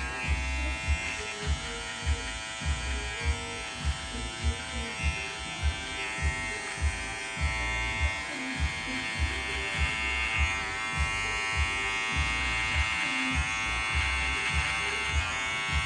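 Gamma+ Boosted cordless hair clipper running steadily while cutting close around the ear and nape, its motor giving an even buzz. A soft low thud comes roughly every half second underneath.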